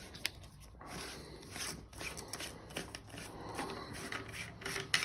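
Toilet-tank rebuild-kit parts being handled and fitted inside the tank: an irregular run of light clicks, taps and scraping.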